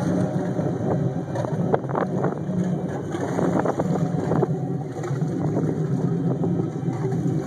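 Inboard 351 V8 of a Carver Drifter cabin cruiser idling steadily with a low, even rumble, running again on its stock breaker-points ignition. A few light knocks come in the first half, with some wind on the microphone.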